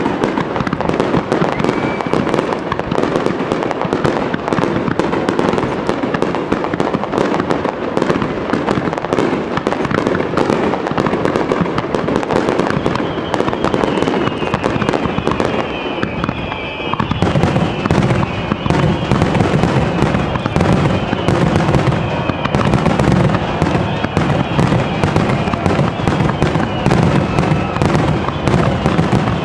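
Aerial fireworks display: a dense, continuous barrage of shell bursts with no break. About halfway through the bursts grow heavier and deeper, and thin, slightly falling high tones sound above them.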